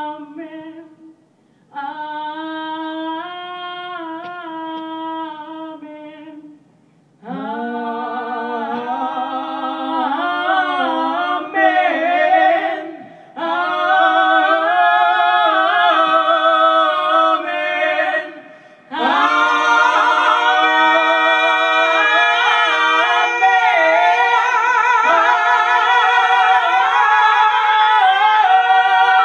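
Female vocal trio singing a cappella in close harmony, in held phrases with short breaks between them. The last phrases are fuller and louder.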